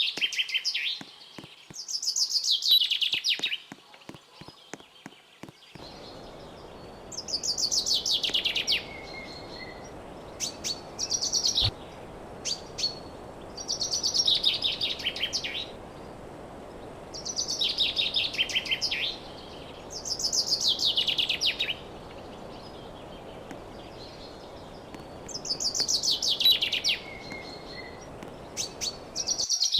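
A songbird repeats a short, high trilled phrase that falls at the end, every few seconds. About six seconds in, a steady airflow hiss starts suddenly and runs underneath it: the TCL split air conditioner running.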